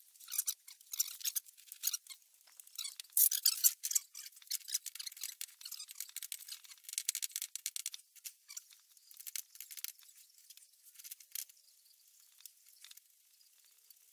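A hand wrench clicking and scraping on a shock absorber's mounting nut: quick, irregular, high-pitched clicks, busiest for the first ten seconds or so and thinning out near the end.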